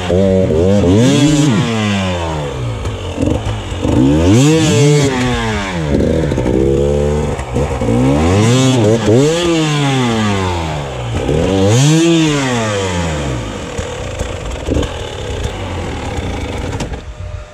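300cc two-stroke enduro motorcycle engine revving, its pitch rising and falling several times a few seconds apart under the throttle, then dropping to a quieter, steadier sound over the last few seconds.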